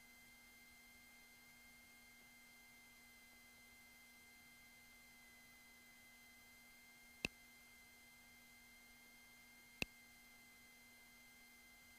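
Near silence: a faint steady electrical hum with a thin high tone, broken by two short clicks a couple of seconds apart in the second half.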